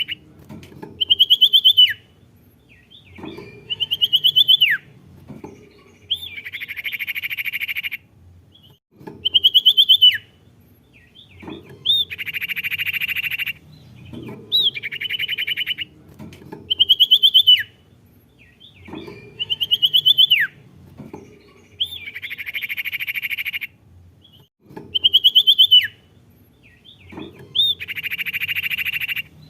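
Songbird singing the same phrase over and over, about every three and a half seconds: a few sharp whistled notes, the last sliding down, then a buzzy trill lasting about a second and a half.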